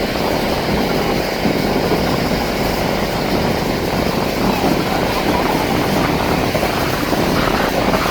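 Canadair CL-415 water bomber flying, its twin turboprop engines making a steady noise.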